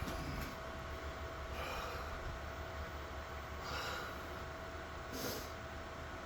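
Steady low electrical hum with a thin constant tone over it, and three short breaths, one roughly every one and a half to two seconds.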